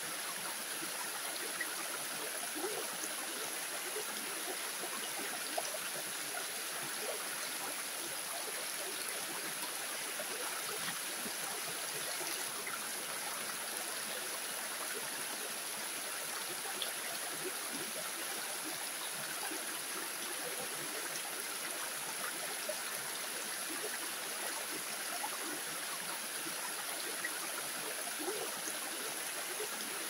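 Small waterfall: thin streams of water falling over rock ledges, a steady splashing rush dotted with many small splashes and drips.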